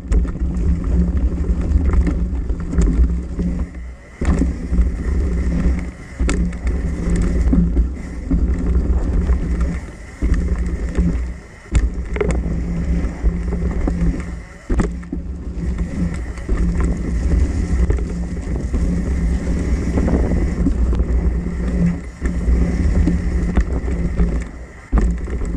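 A full-suspension mountain bike rolling fast down a dirt trail: continuous tyre noise and a deep rumble of rushing air on the camera microphone, with sharp knocks from the bike every few seconds as it hits bumps.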